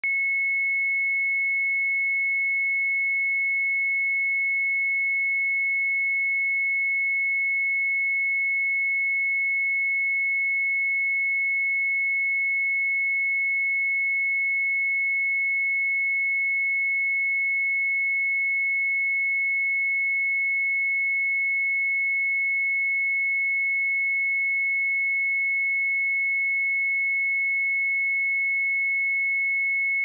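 A pure 2192 Hz sine-wave test tone, one steady unchanging pitch.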